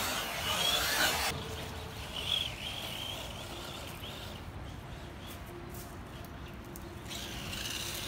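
Electric radio-controlled buggy running on a dirt track: motor whine and tyres on loose dirt, loud and close for about the first second, then much fainter with a brief high motor whine as the buggy is farther off.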